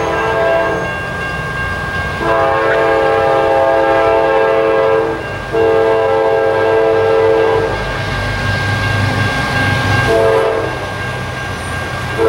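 Multi-tone air horn of an approaching CSX intermodal train's lead locomotive sounding the grade-crossing signal. The end of one long blast comes about a second in, then a long blast of several seconds, a short blast near ten seconds, and the start of another long one at the end, with the train's rumble growing between blasts.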